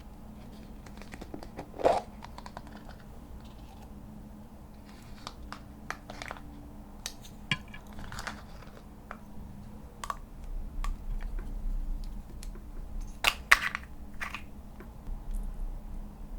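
Hands working slime and makeup, giving irregular small clicks and taps, with a louder click about two seconds in and a cluster near the end.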